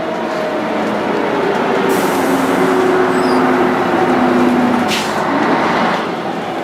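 Scania L113CRB bus running, engine and drivetrain noise with a whine that climbs slightly in pitch and breaks off about five seconds in, where there is a short hiss.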